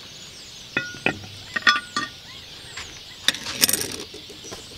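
Metal lid lifter clinking against a coal-covered cast-iron Dutch oven lid as the lid is lifted off, a few sharp ringing clinks. About three and a half seconds in comes a short scraping rattle as the lid, heaped with charcoal briquettes, is set down.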